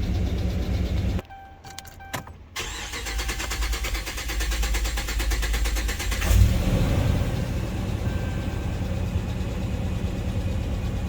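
2009 Dodge Ram 5.7 L Hemi V8 shut off about a second in. It is cranked for a few seconds before it catches with a burst about six seconds in, then idles. This is the slow start of a truck with a cylinder 3 misfire that the inspector puts down to a failed lifter and camshaft.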